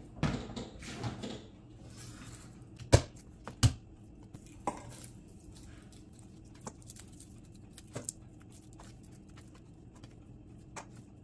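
Garlic being peeled and cut with a knife on a wooden cutting board: papery rustling at first, then two sharp knocks about three seconds in and a few light clicks and taps.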